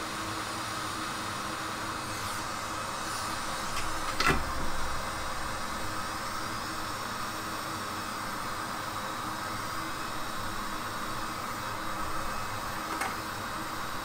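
Steady hiss of a hot air rework station blowing on the circuit board to melt the high-temperature lead-free solder under a USB port. A sharp click comes about four seconds in, and a fainter one near the end.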